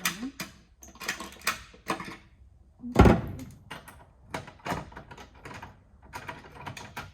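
Clicks, rattles and knocks of a cabinet's locked door and latch being worked by hand to get it open, with one loud knock about three seconds in.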